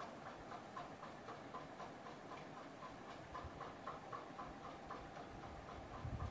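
Faint, rapid, evenly spaced ticking, about four a second, from a metal spoon stirring thick tomato masala frying in an aluminium pressure cooker.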